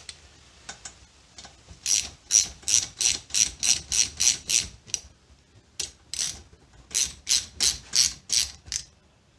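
Ratchet wrench clicking in quick runs of about four clicks a second, with short pauses between runs, as a bolt is worked into a freshly installed helicoil thread insert in an aluminium cylinder head. The thread seems a little tight.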